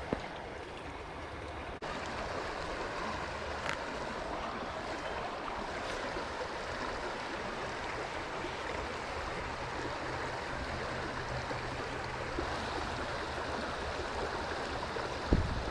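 A trout stream flowing with a steady rushing of water. The sound steps up slightly just under two seconds in, and there is a brief low bump near the end.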